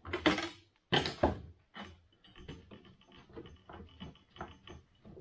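Clamps being set around a glued-up laminated wooden net frame. Two loud knocks as the clamps are handled against the form, then a run of quick clicks, about four a second, as bar clamps are ratcheted on.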